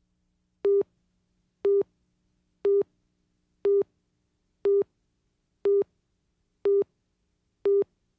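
Countdown leader beeps on a broadcast tape master: eight short beeps of the same steady pitch, one a second, each lasting about a fifth of a second, with a faint hum between them.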